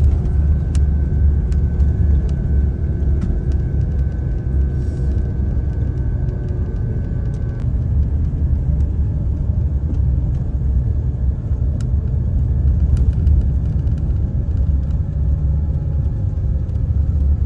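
Steady low rumble of a moving vehicle heard from inside, engine and road noise, with a faint steady whine that stops about halfway through.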